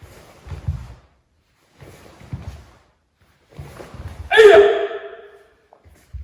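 Karate kiai: a single loud shout about four and a half seconds in, preceded by several dull low thuds of footwork and body movement on the floor.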